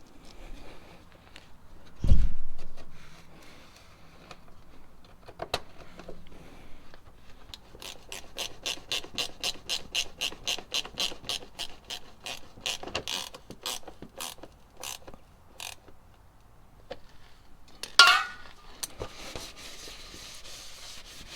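Ratchet wrench clicking in a long steady run, about three clicks a second, as the fasteners of the car's engine undercover are driven back in. A heavy thump comes a couple of seconds in, and a sharp ringing clank near the end.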